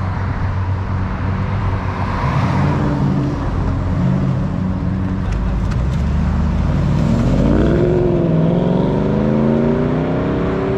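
A car engine runs low and steady as the car pulls out, then accelerates away with its pitch rising over the last few seconds.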